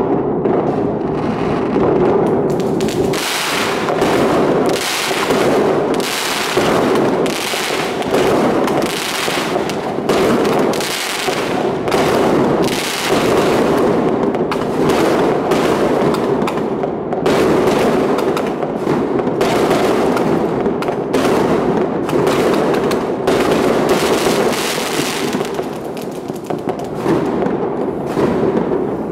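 Fireworks and firecrackers going off all over the city: a loud, dense, nonstop crackle of many overlapping bangs with aerial shells bursting overhead, easing slightly near the end.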